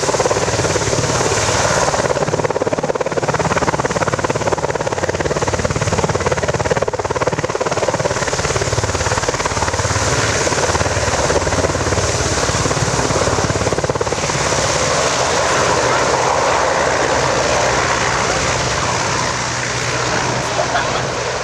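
EH101 helicopter in display flight: loud, steady turbine and rotor noise with a low beat of the rotor blades underneath. It eases a little near the end.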